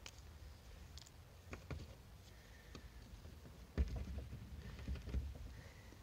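Faint, scattered small clicks and a soft knock about four seconds in, over a low rumble.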